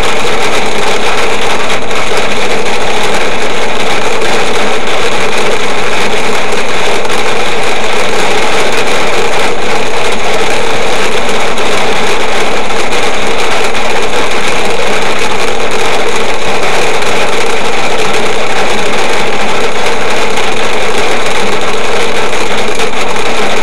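Heavy rain and hail pelting a car's roof and windshield, heard from inside the car: a dense, very loud, steady din with no let-up.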